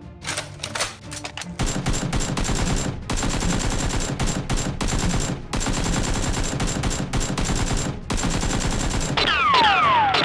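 Rapid automatic gunfire, in long bursts broken by short pauses, the dubbed-in effect that stands in for the Nerf blasters. About a second before the end, several high whistling tones glide downward.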